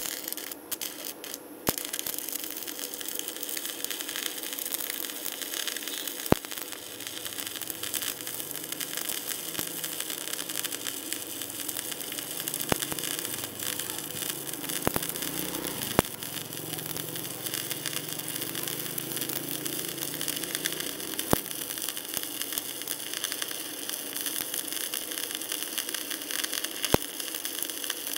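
Stick (MMA) welding at 190 A with a 4 mm electrode: the steady hissing crackle of the arc, with a few sharp pops scattered through it.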